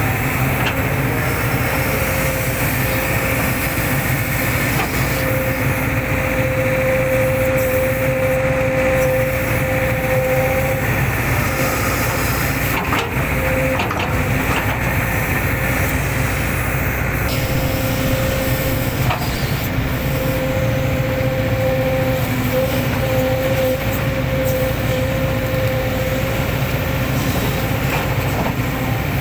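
Hitachi hydraulic excavator working, its diesel engine running steadily with a whine that fades and returns several times as the hydraulics work. A few short knocks come through around the middle.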